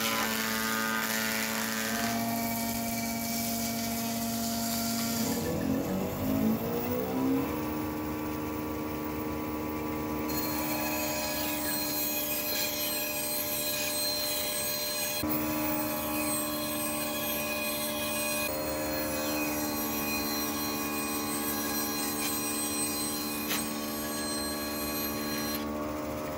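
Woodworking machines running: a jointer planing a board, then a bandsaw ripping a narrow strip along its fence. A steady motor hum runs throughout and changes abruptly every few seconds, with a short stretch of shifting pitch about six seconds in.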